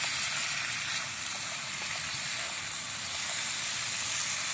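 Chicken feet sizzling in a hot wok, a steady hiss of frying, with faint scattered clicks as a wooden spatula stirs them.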